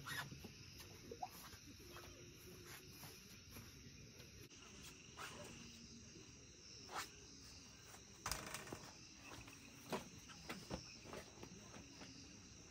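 Crickets chirping faintly in the night, with a few soft clicks and knocks of camping gear being handled.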